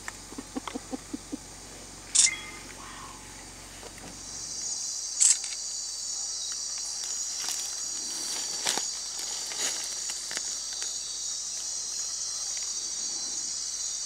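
Night insect chorus: a steady, dense, high-pitched shrill that sets in about five seconds in, with a few sharp clicks over it.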